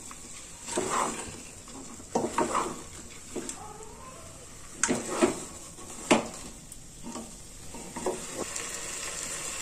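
Wooden spatula stirring and scraping dalia and vegetables as they roast in an open pressure cooker, with irregular scrapes and a few knocks against the pot. A faint sizzle runs underneath.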